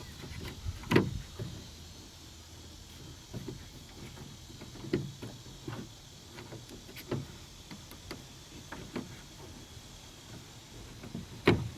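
Scattered clicks and knocks as a 2003 Ford Windstar's interior sliding-door handle assembly is worked off its mounting hooks, with a sharp knock about a second in and another near the end.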